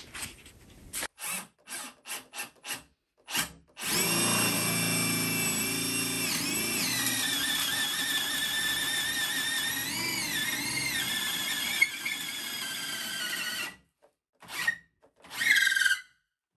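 Bosch UniversalHammer 18V cordless rotary hammer driving a long wood auger bit into a beam. A few short clicks come first as its mode selector is turned. Then there are about ten seconds of steady motor whine that sags in pitch as the bit bites, and two short trigger bursts near the end: the tool is struggling against the auger bit's friction and can't drive it deeper.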